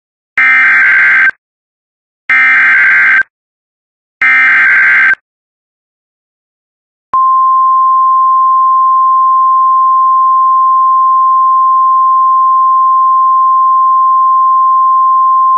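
Emergency Alert System SAME header: three one-second bursts of screeching digital data about two seconds apart, encoding the severe thunderstorm warning. Then, about seven seconds in, the NOAA Weather Radio warning alarm tone: one long steady high tone that signals an alert message is about to follow.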